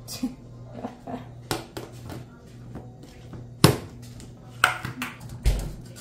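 Soft background music under about half a dozen sharp knocks and clatters of kitchen containers being handled and set down. The loudest knock comes a little past halfway, and a low thump comes near the end.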